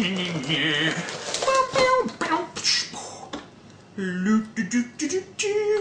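A man making wordless sung, beatbox-style mouth sounds, with the crinkle and rustle of a cardboard cracker box and its packaging being opened.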